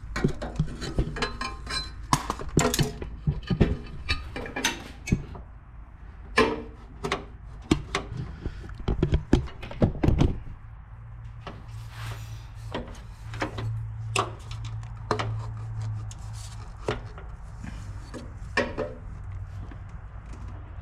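Powder-coated intercooler pipe knocking and clunking against the car's body and fittings as it is worked into place, a quick run of sharp knocks for about ten seconds. After that come only a few scattered clicks over a steady low hum.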